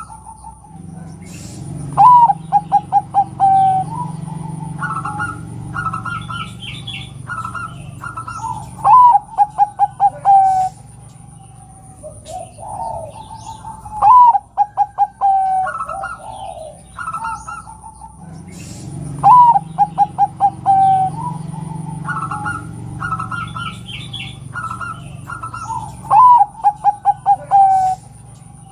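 Zebra dove (perkutut) hen calling: five loud cooing phrases a few seconds apart, each a sharp opening note followed by a quick run of short staccato coos that sag slightly in pitch, with softer short coos in between. This is the call used to lure male perkutut into singing.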